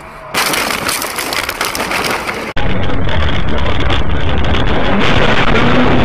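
Loud steady rushing road and wind noise from a car's dashcam driving on a snowy road. About two and a half seconds in it cuts abruptly to a heavier, duller rumble of road noise from another dashcam.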